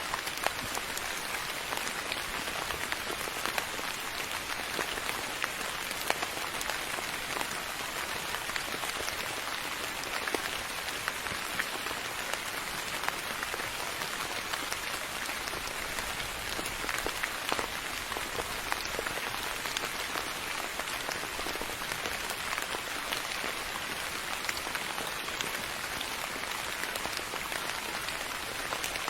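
Steady rain falling on a surface: an even hiss of many fine drops, with small individual drop ticks scattered through it.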